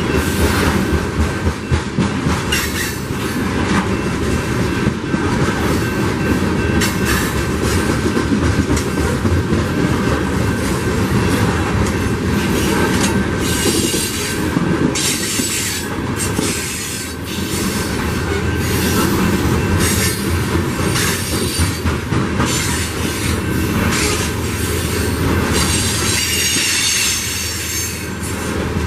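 Loaded coal train's open-top coal cars rolling past close by, steel wheels rumbling and clacking unevenly over the rails. High-pitched wheel squeal rises about halfway through and again near the end.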